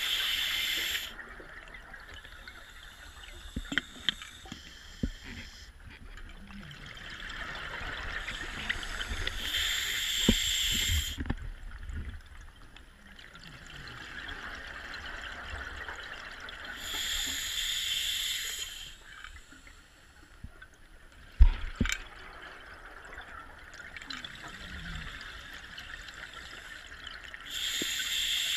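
Scuba diver's regulator underwater: a hiss of breathing in, then a rush of exhaust bubbles, about every eight seconds. There are a few sharp knocks, the loudest about 21 seconds in.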